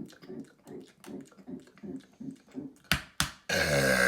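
A man gulping rhythmically, about three gulps a second, then two sharp clicks, and about three and a half seconds in a loud, long, deep burp begins.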